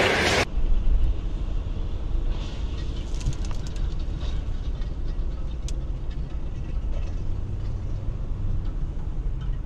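Steady low road and engine rumble heard inside a car driving on a highway, with scattered faint clicks a couple of seconds in. It follows a loud rushing noise that cuts off about half a second in.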